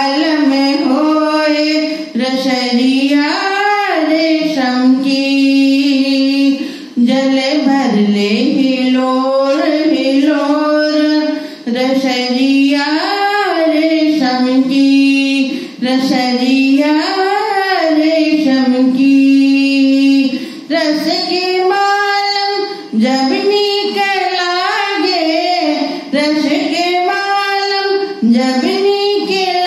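A woman singing a Hindi dadra folk-devotional song solo into a handheld microphone, in phrases with long held notes and brief breaths between them.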